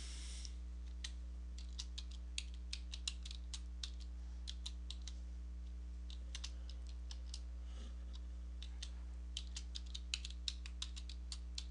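Keystrokes on a computer keyboard, typed in short irregular runs with brief pauses, over a steady low hum.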